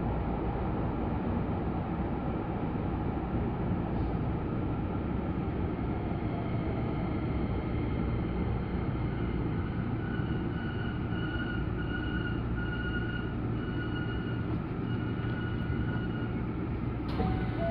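Hankyu Kyoto Line train running, a steady low rumble heard from inside the passenger car. From about ten seconds in, a level-crossing warning bell rings in a run of short repeated tones for several seconds.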